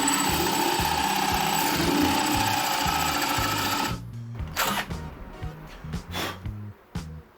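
A power drill runs steadily for about four seconds with a steady whine, boring a hole into very hard, dense wood, then stops. A few short knocks follow. Background music with a steady beat plays under it.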